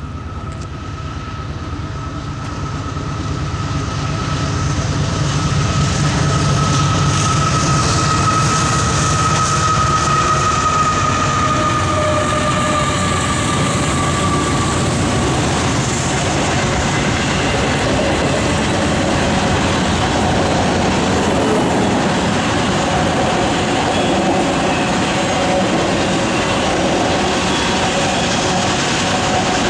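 Union Pacific freight train passing at track speed. The diesel locomotives draw closer and louder over the first few seconds, then a long string of autorack cars rolls by with steady wheel-and-rail noise and clickety-clack. A high whine runs through the first half and fades out.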